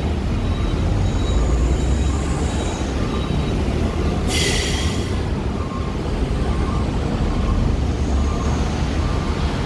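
Steady low rumble of truck and bus engines running in a ferry-port vehicle queue. About four seconds in there is a short hiss, like a heavy vehicle's air brakes releasing.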